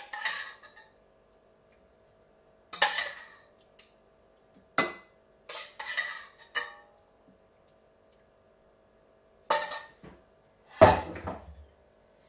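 Metal spoon scraping and clinking against a stainless steel saucepan as tomato sauce is spooned out, in separate strokes a second or two apart. Near the end comes a heavier clunk as the saucepan is set down.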